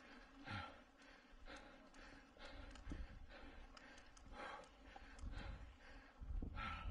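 A mountain biker's hard, rhythmic breathing while pedalling flat out in a race, with breaths coming roughly once a second over a low rumble of trail and wind noise.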